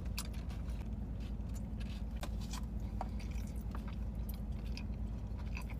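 Person chewing food close to the microphone, with many scattered small wet mouth clicks and crunches, over a steady low hum.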